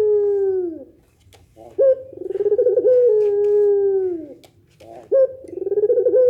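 Puter doves (domestic Barbary doves, a long-calling pelung variety) cooing: long drawn-out coos about two and a half seconds each, held steady and then dropping in pitch at the end. One coo ends about a second in, a full coo fills the middle, and another begins near the end.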